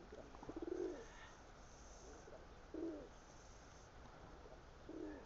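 Pigeons cooing faintly: three short, low coos about two seconds apart.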